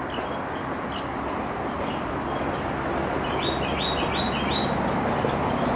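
Small songbirds chirping in short, high notes, with a quick run of four chirps about three seconds in, over the steady rush of nearby highway traffic. The recordist takes the chirps for birds warning each other about a perched hawk.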